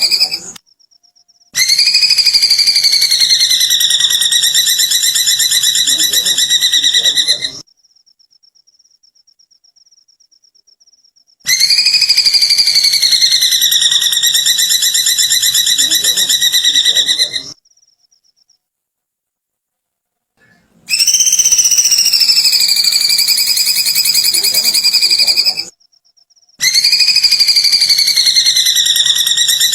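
A bird's high, rapidly pulsing giggle-like trill, the 'kikikan kunti' (kuntilanak giggle) call: each phrase rises briefly, then dips and holds a steady pitch for about five to six seconds. It comes four times, each starting and stopping abruptly with the same shape, like a looped recording.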